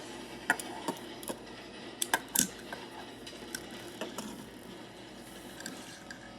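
Irregular sharp clicks and knocks of small hard objects, loudest about half a second in and in a cluster around two to two and a half seconds in, thinning out after about four seconds.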